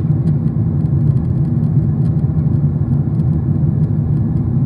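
Steady low rumble of an airliner cabin in flight: jet engine and airflow noise heard from a seat by the window.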